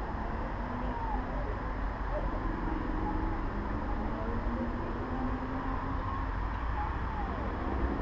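Steady outdoor background noise with a low rumble, like distant traffic.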